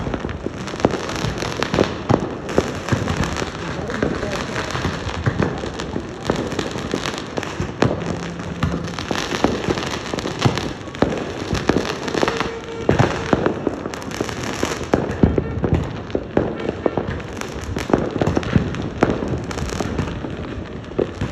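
Many fireworks going off at once: a dense, continuous crackle of bangs and pops with no break.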